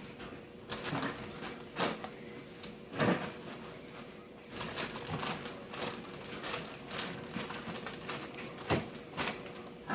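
Frozen food packages being handled and shifted on the wire shelves of a refrigerator's freezer compartment: irregular plastic-bag rustling and a string of light knocks and clicks, about seven in all, over a faint steady hum.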